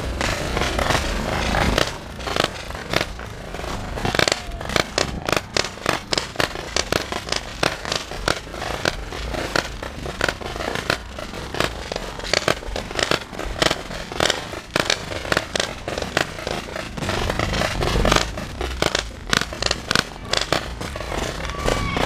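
Several hopper-fed paintball markers firing in rapid, irregular volleys, several sharp pops a second overlapping from more than one gun, over a low rumble.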